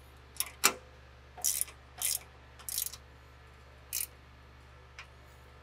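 Hand tools working a bolt on a steel bracket: a handful of short, irregular metallic clicks and scrapes as a hex key and wrench tighten the bolt.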